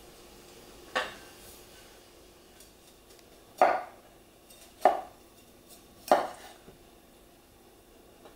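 Four sharp knocks of a kitchen knife on a wooden cutting board, about a second apart, as broccoli is cut into florets.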